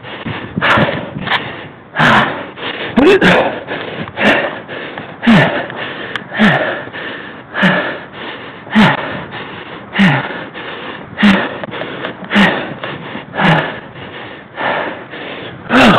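A man panting hard: a loud breath with a short falling voiced grunt about once a second, evenly paced, as from heavy exertion.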